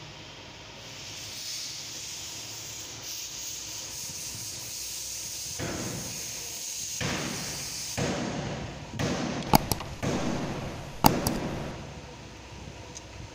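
Hands working on a car engine's thermostat housing: rubbing and scraping of parts, busier in the second half, with a few sharp metallic clicks, two of them standing out.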